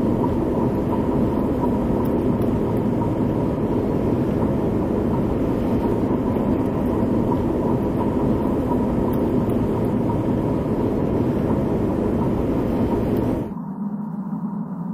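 Steady, dense rumbling drone from a film soundtrack, cut off abruptly about thirteen seconds in and replaced by a quieter low hum.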